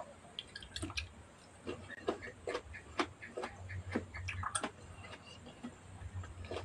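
Close-up eating sounds: irregular small clicks and wet smacks, a few each second, from chewing and from fingers picking at rice and fish on a plastic plate, over a faint low hum.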